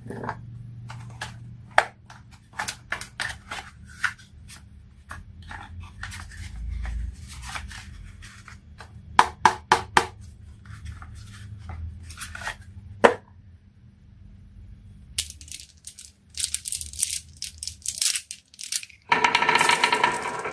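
Marbles and small toy vehicles rolling down a HABA marble run, clicking and clacking against the track and each other in irregular bursts, with a few louder knocks. Near the end a dense, continuous rattle sets in.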